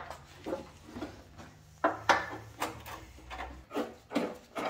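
Hand tools and metal parts being handled: a run of irregular clacks and knocks, several in quick succession, like rummaging for a tool and setting it to work.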